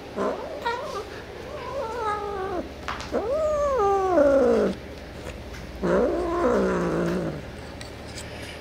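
Domestic cat yowling in four drawn-out calls, each rising and then falling in pitch; the third, about three seconds in, is the longest and loudest.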